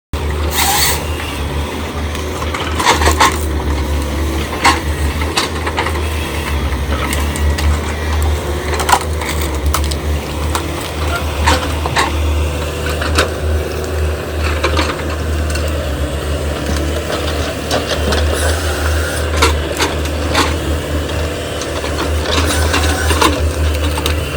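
Excavator diesel engine running steadily, with irregular sharp knocks and cracks of wood and metal as felled trees are handled.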